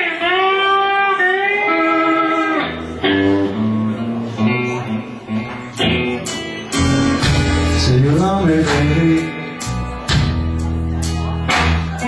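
A blues band playing live. Bent lead notes ring out at first, then bass and drums come in about three seconds in, and the full band is playing from about seven seconds.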